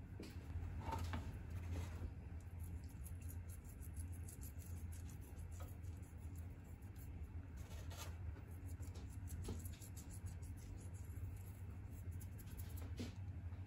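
Fine grains sprinkled from the fingers onto tomatoes and a ceramic baking dish, landing as faint, scattered ticks, over a steady low hum.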